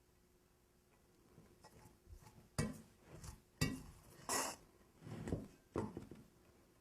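A spoon knocking and scraping against dishes as cooked rice is served: a few sharp clinks with short scrapes between them.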